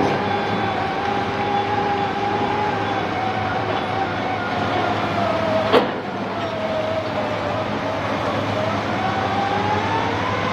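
Sany SR150C rotary piling rig running while drilling a bore pile, its engine and hydraulics giving a steady whine that sags in pitch and climbs back as the load changes. One sharp metallic clank about six seconds in.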